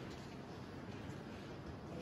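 Faint, steady room noise with no distinct sounds: the ambient tone of an enclosed space.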